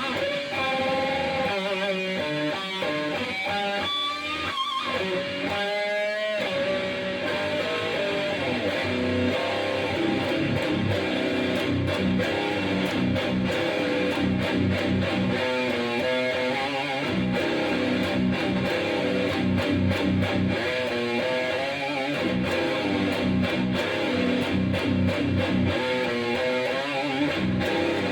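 Heavily distorted electric guitar, a B.C. Rich Platinum Series Bich played through a Crate Blue Voodoo 60 amp with a Zoom GFX-1 stompbox, playing slow sludge riffs. It opens with bent, wavering single notes, then settles into thick, sustained chords about six seconds in.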